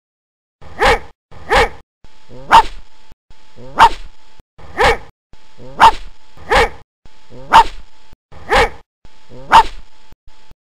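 A dog barking single sharp barks, about one a second, ten in all. Each bark sits in a short stretch of faint hum, cut off to dead silence between barks.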